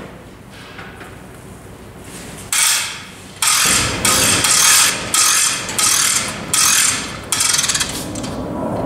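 Spring-loaded gas hose reel ratcheting as the hose is pulled off in a series of tugs: about seven short bursts of clicking and rattling, starting a couple of seconds in and stopping near the end.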